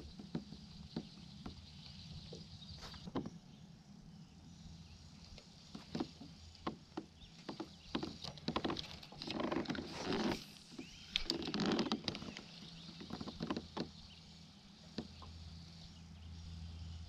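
Irregular clicks and knocks of a fishing rod and reel being worked from a small boat after a cast, busiest in a cluster about ten seconds in, over a low steady hum.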